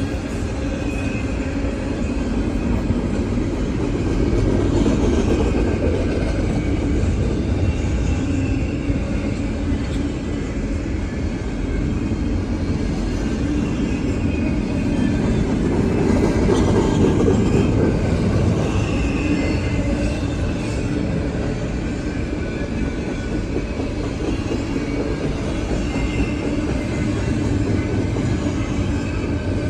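Intermodal freight train rolling past: a steady rumble of steel wheels on rail, with faint high wheel squeal coming and going.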